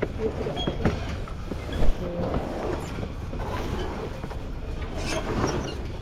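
Rattling, clanking and scraping of hot air balloon gear being shifted and loaded onto a trailer, with one heavy thump about two seconds in.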